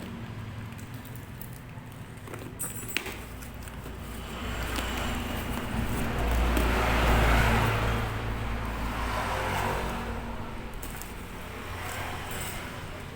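Motor vehicle engine running, swelling to its loudest several seconds in and fading again, with one sharp click shortly before the swell.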